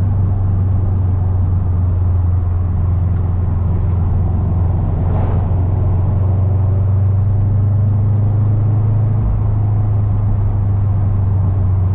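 Car's steady low engine and road drone while driving, its tone shifting slightly about nine seconds in.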